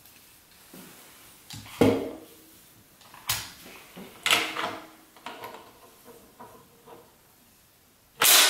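Hands handling an M1 Garand rifle on a cloth-covered table. Its wooden stock and steel action give a scattered series of knocks, clunks and rubbing sounds, about half a dozen in all, the loudest about two seconds in.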